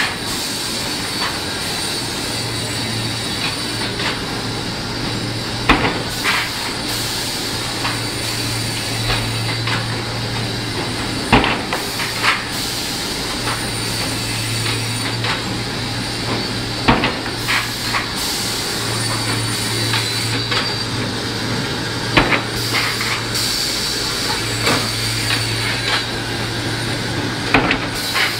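Automatic double-side (DD) trimming saw line for film-faced plywood running: a steady machine noise with a high whine and a low motor hum that cuts in and out every few seconds. Sharp metallic clunks come mostly in pairs, about every five to six seconds.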